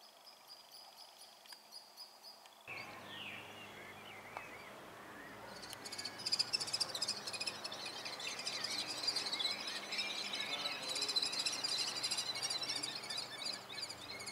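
Birds chirping and twittering: dense, rapid high-pitched calls that set in about six seconds in and carry on over a steady outdoor background hum.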